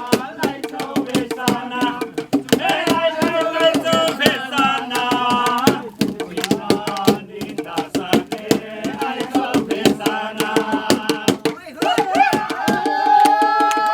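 Singing to a fast, steady percussion beat, with the sung line breaking off and starting again several times.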